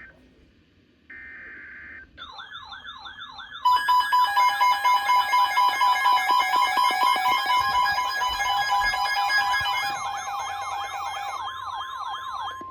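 Electronic emergency alert siren tone. After a brief buzzing data-like burst, a yelping siren sweep starts, rising about three times a second. About a second and a half later a loud chord of steady tones with a pulsing beat joins it. It eases slightly near the end and then stops.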